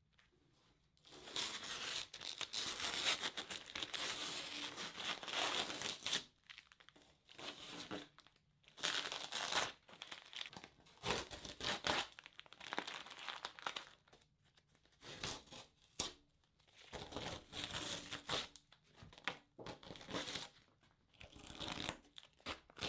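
Masking tape being peeled off a foam board, ripping and crinkling. It starts with one long pull of about five seconds and goes on in a series of shorter tugs.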